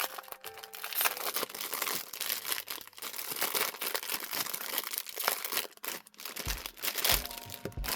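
Crinkly packaging rustling and crackling in the hands as a photo card set is opened. Background music with a low, regular beat comes in near the end.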